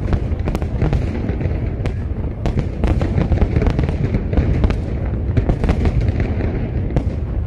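Aerial fireworks display: shells bursting in quick succession, sharp cracks several times a second over a steady low rumble of booms.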